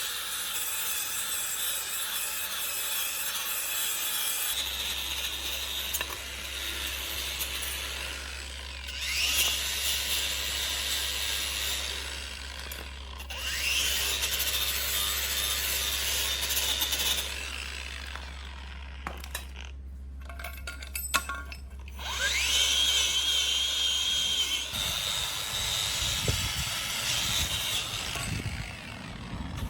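A handheld electric power tool running in spells, spinning up three times with a rising whine that settles to a steady high pitch as it works. There is a quieter pause with a few clicks between spells.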